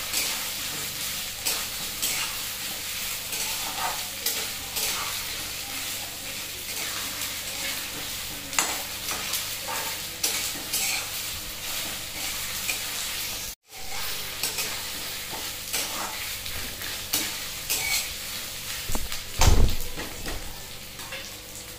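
Potato chunks and whole garlic frying and sizzling in a steel kadai, with a metal spatula stirring and scraping against the pan many times. The sound cuts out for an instant a little past halfway, and a dull low thump comes near the end.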